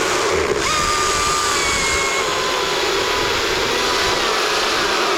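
Husqvarna chainsaw running at full throttle through a cut. It eases off briefly and revs back up about half a second in, then holds, its pitch slowly sagging under load.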